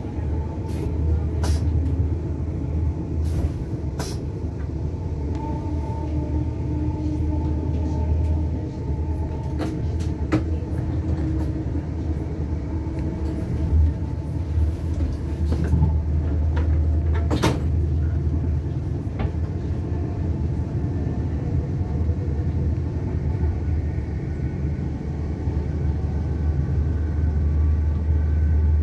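Steady low rumble of an electric passenger train running along the line, heard from inside the carriage, with a few sharp clicks along the way, the loudest a little past halfway.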